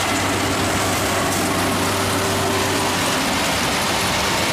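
Yanmar AW82 rice combine harvester running steadily while cutting and threshing, a continuous mechanical drone. Its low hum shifts about three seconds in.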